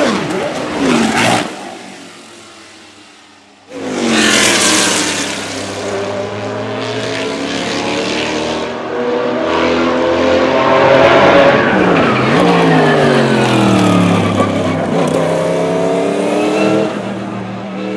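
Group C prototype race car engines at high revs, the note rising and falling through gear changes. The first pass fades away about two seconds in, then engine sound comes back loudly just before four seconds; around twelve seconds the pitch drops sharply to a low point and climbs again.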